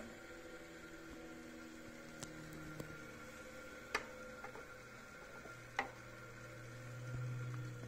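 Gear-selector lever on a Klopp mechanical shaper being shifted in its notched plate: a few sharp metal clicks, the loudest about four and six seconds in. A faint low hum swells near the end.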